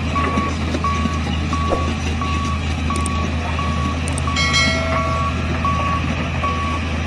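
Dump truck's diesel engine running heavily while the bed is raised to tip its load, with a backup alarm beeping evenly, about three beeps every two seconds. A short high whine sounds a little past halfway.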